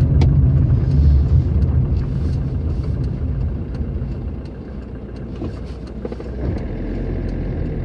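Car engine and road noise heard from inside the cabin while driving: a steady low rumble that eases off as the car slows about halfway through, then rises again near the end.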